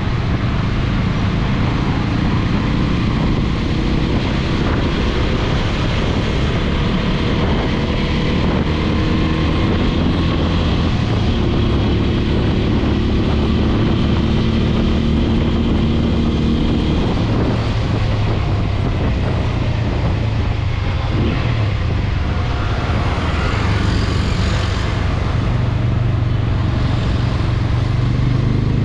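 TVS Apache RTR 200 4V's single-cylinder engine running steadily under way, over wind and road noise. Its pitch shifts gently with the throttle and rises near the end as the bike accelerates.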